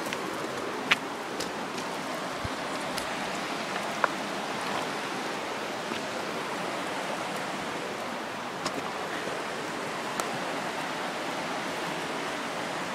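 Steady rushing of a shallow creek flowing over rocks and through riffles, with a couple of sharp clicks about a second and about four seconds in.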